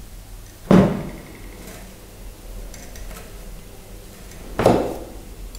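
Thin copper wire being wrapped by hand around a bundle of three thicker copper wires, with faint ticking of wire on wire. Two sharp knocks stand out, about four seconds apart.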